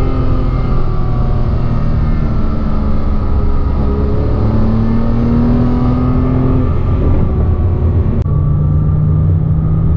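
2007 Porsche Cayman S's 3.4-litre flat-six engine running under way, its pitch falling, then climbing, then settling after a click about eight seconds in. A high-pitched whine follows engine RPM, the sign of a worn water pump bearing.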